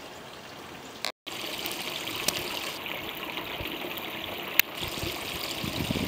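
A shallow stream trickling and babbling between stones in a small channel. After a brief dropout about a second in, the water is closer and louder; two sharp clicks stand out over it.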